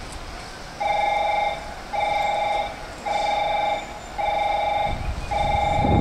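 Station platform's approaching-train warning tone: an electronic tone pulsing about once a second, starting about a second in. Near the end, the rumble of an arriving train comes in under it.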